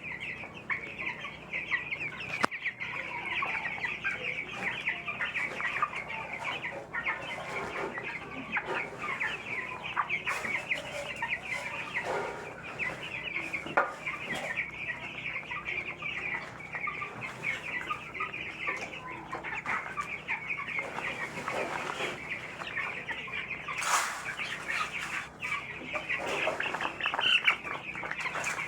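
A crowd of young broiler chicks peeping continuously, a dense chorus of high, overlapping chirps, with one brief knock near the end.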